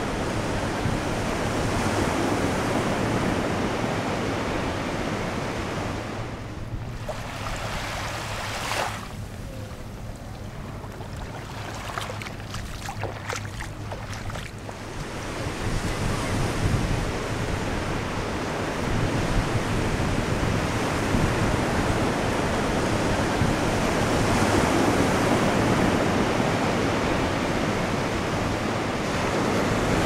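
Ocean surf washing onto a beach, with wind buffeting the microphone. The sound drops quieter for several seconds in the middle, then comes back up.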